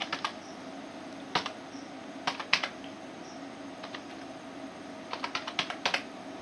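Computer keyboard keystrokes typing a date: a few scattered taps, then a quick run of several keys near the end.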